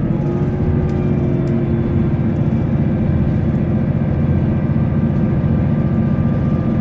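Diesel passenger train running, heard from inside the carriage: a steady low rumble of engine and wheels with a faint held whine.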